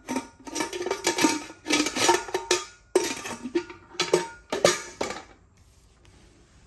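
Metal pots and pressure-cooker lids clanking and rattling against each other as they are handled and set down, with short metallic rings, for about five seconds before it stops.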